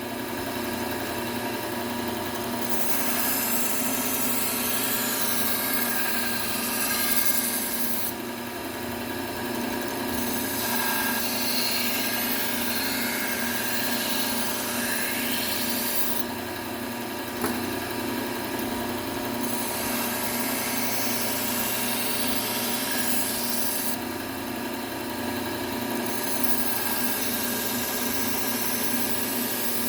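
Low-speed belt sander running with a Trizact A30 belt (about 600 grit), a steel kitchen-knife blade drawn across it to refine the edge. The grinding hiss comes in four long passes with short gaps where only the motor hum is heard.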